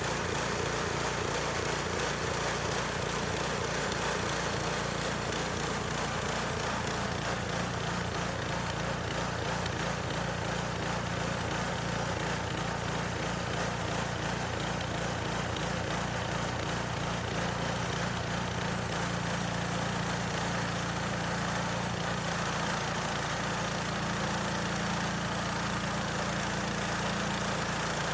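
Gasoline engine of a budget band sawmill running steadily, its note shifting slightly about two-thirds of the way through.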